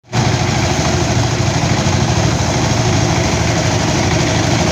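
Engine-driven rice threshing machine running steadily, a loud, even engine sound with a fast low pulse that starts abruptly right at the beginning.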